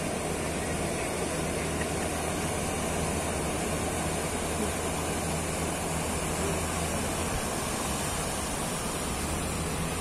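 Surf and foaming water rushing, with the steady low drone of a wooden fishing boat's engine underneath, which dips for a while near the end.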